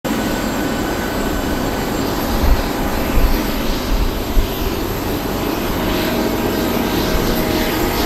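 Boeing 737-800 jet engines running steadily, a dense roar with a few thin high whining tones. Gusts of blizzard wind buffet the microphone now and then with low rumbles.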